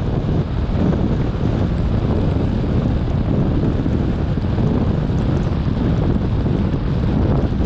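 Steady low rumble and hiss of a car driving on a wet road, with wind noise on the microphone.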